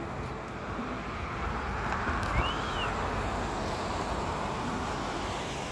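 Street traffic: the steady rush of passing vehicles, swelling in the middle as one goes by, with a short high squeal that rises and falls about two and a half seconds in.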